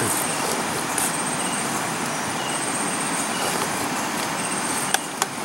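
Steady night-time jungle hiss with insects trilling high in short repeated bursts, and a few sharp clicks about five seconds in.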